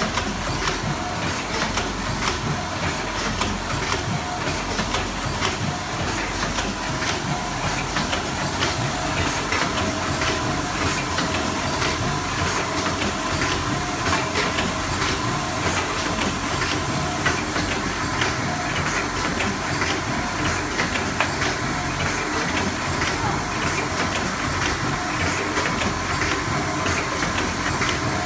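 Triangular nylon-mesh tea bag packing machine running: a steady, dense clatter of rapid clicks over an even hiss-like noise, with a faint steady tone.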